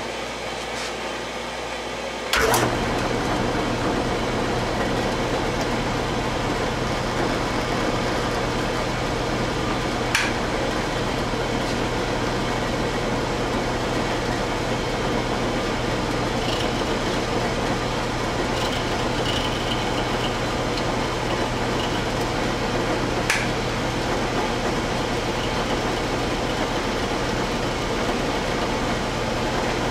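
Milling machine switched on with a click about two seconds in, then running steadily with a low hum while a roughing end mill squares up metal exhaust-manifold spacer blanks. A couple of sharp ticks sound over the steady running.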